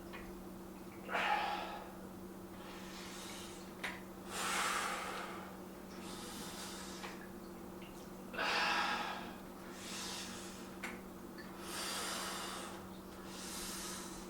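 A man breathing hard and rhythmically through a set of weight-lifting reps, a forceful breath every second or two, the effort of each repetition. A steady low hum runs underneath.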